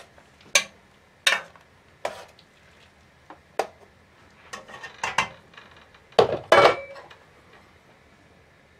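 A spoon stirring thick chowder in an enamel pot, knocking and clinking against the pot's side about once a second, with the two loudest knocks close together about six seconds in.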